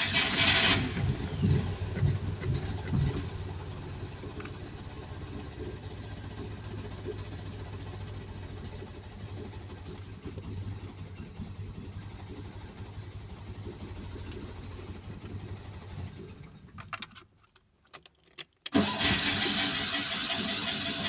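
Fiat 126p engine being cranked on the starter and sputtering without catching: loud cranking for the first second, a quieter, steady low engine sound after it, then a brief drop to near silence and loud cranking again from about two seconds before the end.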